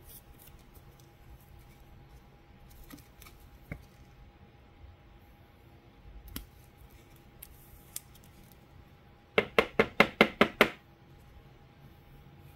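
Trading cards being handled on a tabletop: faint rustles and light clicks, then, about three-quarters of the way in, a quick run of about eight sharp taps, like a stack of cards knocked on the table to square it.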